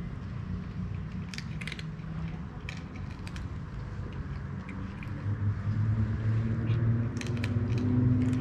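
Low hum of a vehicle engine running, growing louder after about five seconds. Over it, scattered sharp crunching clicks of tabby cats eating dry cat food.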